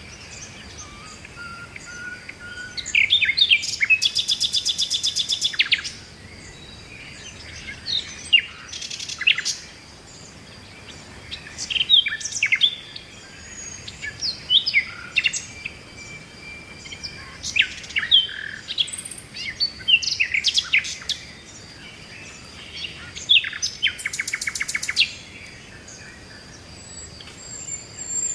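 Several birds calling and chirping in short, varied phrases, with two rapid rattling trills of about a second and a half each, one early and one near the end.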